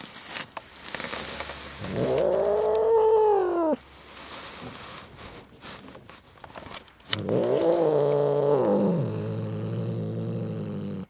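Agitated cat yowling twice: a drawn-out call of about two seconds that rises and falls, then a longer one of about four seconds that rises and settles into a lower, steady pitch, the sound of an upset cat resisting being pulled out from its hiding place. Rustling and scratching come before the first yowl.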